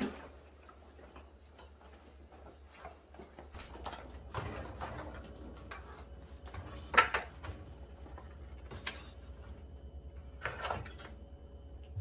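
Groceries and clear food containers being set onto refrigerator shelves: scattered clunks and rustles, with a louder knock about seven seconds in and another about ten and a half seconds in, over a low steady hum.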